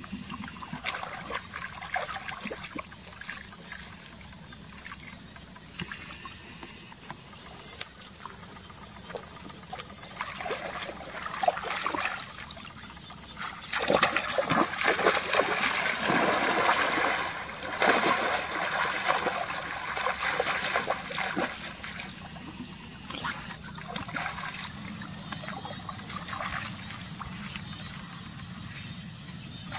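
Water splashing and trickling in small irregular spurts, with a louder stretch of splashing for about four seconds near the middle.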